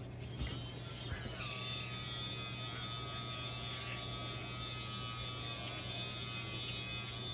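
Battery-powered Craftsman sprayer's small electric pump switching on about a second in and running with a steady whine as it sprays bleach cleaner.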